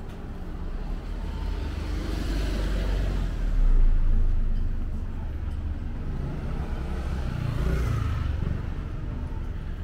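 Cars passing on a street. One swells and fades about four seconds in, and a second passes near the end over a steady low rumble.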